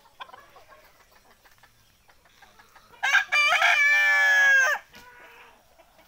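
Rooster crowing once, about three seconds in: one loud held call lasting under two seconds that drops slightly in pitch at its end.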